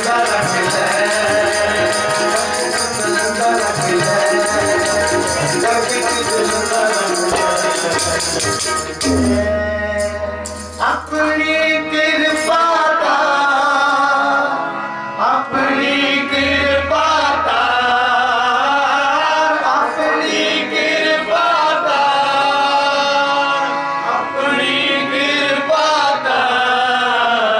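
Sikh kirtan: men singing to harmonium and tabla. Fast drumming with a rattling percussion runs for about the first nine seconds, then stops, leaving the voices over the sustained harmonium.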